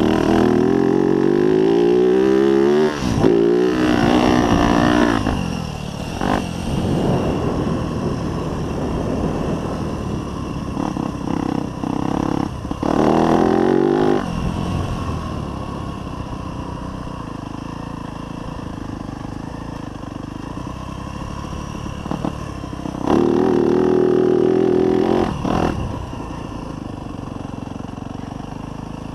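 2024 Yamaha YZ250F's 250cc four-stroke single-cylinder engine being ridden hard, revving up in several loud bursts with its pitch climbing, easing to lower, quieter running between them and near the end.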